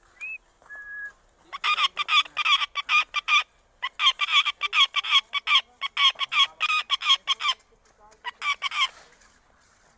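Parrot calling: two short whistled notes, then three bouts of rapid, harsh repeated calls at about five a second, which sound much like a hen clucking.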